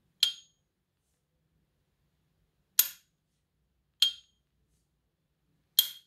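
S.T. Dupont lighter's hinged metal lid being flicked, giving its ping: four sharp metallic clicks, each with a brief high ringing tone, spaced unevenly over the few seconds.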